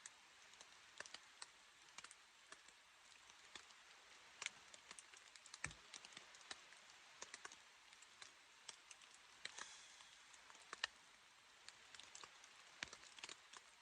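Faint, scattered irregular ticks and taps over a low steady hiss, with one soft low thump about six seconds in.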